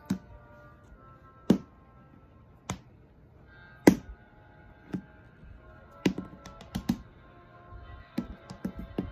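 A plastic toy figure knocked along a hardwood floor as it is walked: single sharp knocks about once a second, then quicker clusters of knocks near the end, over quiet steady music.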